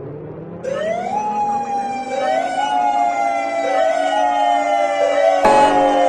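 Alarm siren: a low tone slowly winds up, then from under a second in a second siren joins it. This one sweeps quickly up in pitch and slides slowly back down about every one and a half seconds, over a steady tone. A brief loud burst of noise cuts across it about five and a half seconds in.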